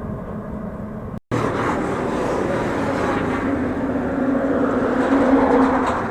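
Wind rush and road noise on a bike-mounted action camera while cycling on a road. The sound cuts out for an instant about a second in, then returns louder, with a low droning hum that swells near the end.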